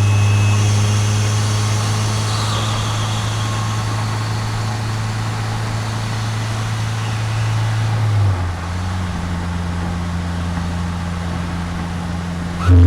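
Tuned 2022 Subaru WRX's 2.4-litre turbocharged flat-four idling steadily, picked up at the BMS intake by a microphone in the engine bay. About eight seconds in, the idle steps down slightly lower.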